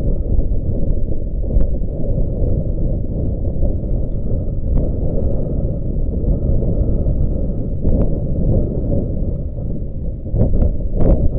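Strong wind buffeting the microphone: a steady low rumble, with a few faint clicks near the end.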